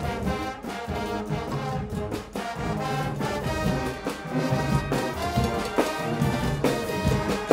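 Guggenmusik carnival brass band playing live: euphoniums and other brass horns sound loud held chords over a drum kit, with drums and cymbals hitting throughout.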